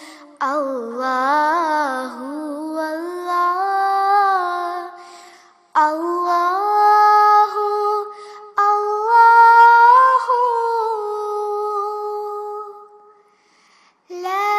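A high solo voice singing a naat unaccompanied, drawing out long, wavering, ornamented notes in three phrases. There is a short pause near the end before the voice comes back in.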